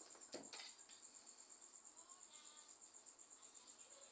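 Near silence, with a faint, high-pitched, evenly pulsed chirping like a cricket's.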